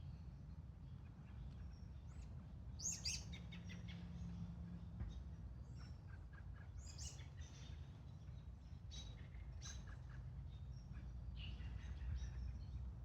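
Outdoor ambience of scattered short, high bird chirps, several times over a steady low rumble.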